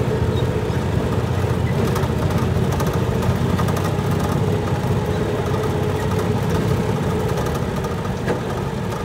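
Tractor engine running steadily with a low rumble, just after being tow-started.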